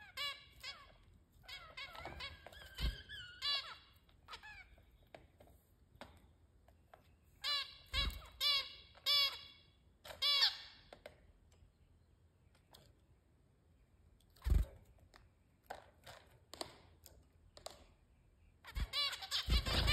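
Zebra finches calling: strings of short, nasal beeping calls in quick succession, in bursts near the start, around two to three seconds in, and around eight to ten seconds in. A few dull low thumps come between the calls.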